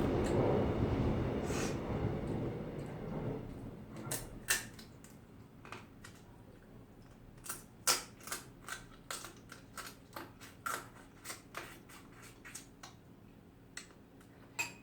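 Eating noises at a meal of crab soup: a noisy stretch at first that fades away, then a run of sharp, irregular clicks and taps, about one or two a second.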